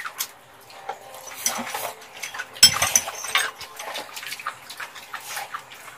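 Close mouth sounds of eating saucy tteokbokki rice cakes: wet chewing, smacking and slurping in many short clicks, loudest just before the middle.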